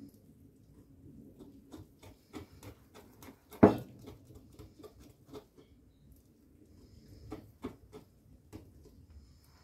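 Wire whisk beating thick spinach crepe batter in a glass bowl: a run of soft clicks and taps as the wires hit the glass, with one much louder knock about three and a half seconds in.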